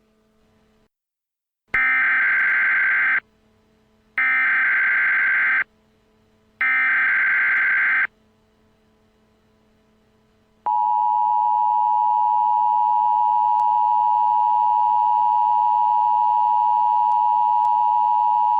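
Emergency Alert System SAME header: three identical bursts of screeching digital data tones, each about a second and a half long. About two and a half seconds later comes the steady EAS attention signal, a two-tone beep that holds to the end, announcing a new alert.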